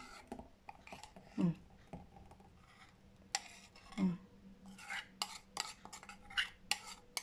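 Quiet kitchen handling sounds: a bowl clinking and scraping against the rim of a plastic blender cup while thick green dressing is poured in. There are a series of light ticks, more frequent in the second half, and two short low vocal murmurs.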